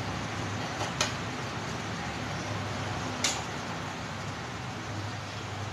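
Sugar syrup simmering on low flame in a pan with rasgulla balls, a steady bubbling hiss. Two short clicks break it, about one second in and again a little after three seconds.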